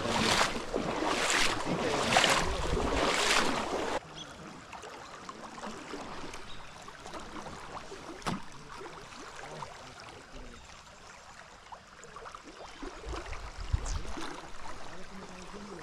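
Loud rushing water and wind noise in repeated surges, cutting off suddenly about four seconds in to a much quieter river background with a few faint clicks.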